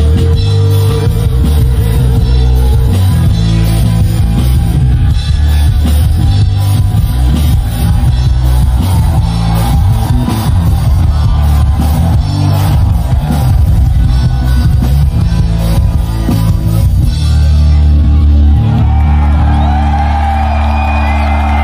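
Live rock band with electric guitars, bass and drum kit playing loud. About 17 seconds in the drumming stops and the band holds a final chord, while the crowd shouts and whoops over it near the end.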